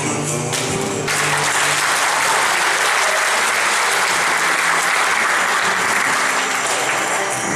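Audience applause: a dense spell of clapping that starts about a second in, over the last of a sung note, and runs until the music picks up again near the end.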